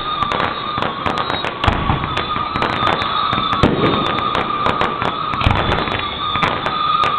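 Fireworks going off: dense crackling with several deep booms, over a steady high tone.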